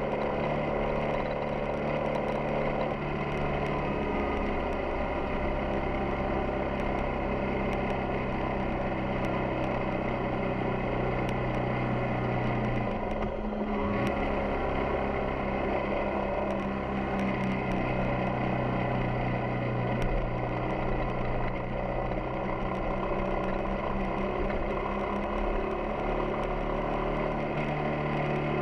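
Yamaha XTZ 250 Ténéré's single-cylinder four-stroke engine running steadily under way. Its note dips briefly about halfway through and then picks up again.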